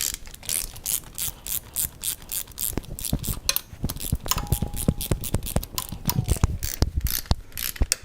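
Hand ratchet with a 17mm socket clicking through many quick strokes as the oil drain bolt on a 125cc four-stroke pit bike engine is tightened down.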